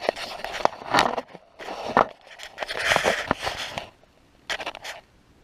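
Handling noises: irregular rustling and scraping with sharp clicks as a cordless driver and screws are shifted into position, then one short rustle near the end. No driver motor is running.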